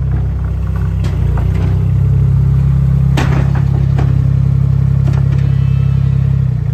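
A loud engine running steadily at a low, even pitch, with a few sharp knocks over it.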